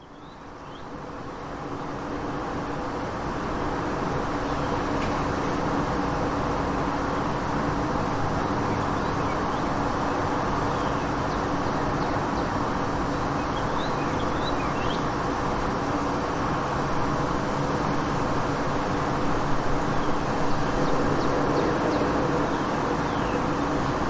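Daytime city ambience: a steady wash of road-traffic noise with a constant low hum. It fades in over the first few seconds, with a few short high chirps scattered through it.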